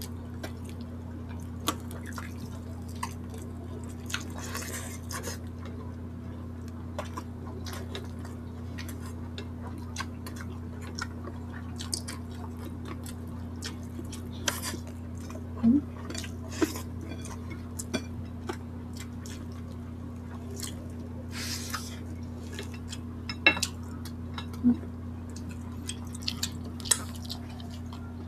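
Eating sounds picked up close: scattered wet mouth clicks and smacks of chewing and sipping broth, with a few sharper clicks about halfway through and near the end. A steady low hum runs underneath.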